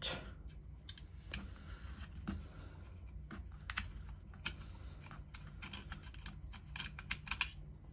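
Light metal clicks and scrapes of a small hand driver turning loose screws out of a servo motor's housing.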